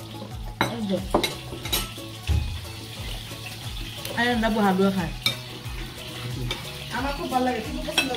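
Metal spoons clinking and scraping against plates and serving bowls as food is dished out, with several sharp clinks.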